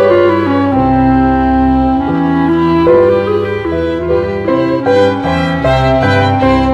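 Salon orchestra music: a violin carries the melody over held notes from the lower bowed strings. The tune is built on the Mayamalavagowla raga scale.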